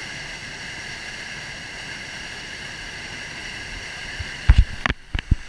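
Waterfall rushing steadily, heard as an even hiss. About four and a half seconds in come a few loud, sharp knocks, and the rush briefly drops out.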